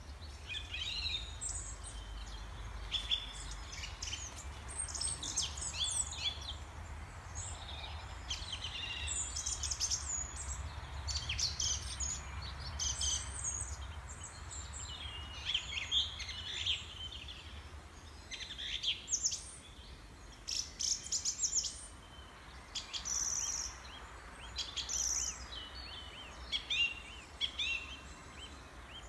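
Small songbirds chirping, many short high-pitched calls overlapping throughout, over a low steady rumble.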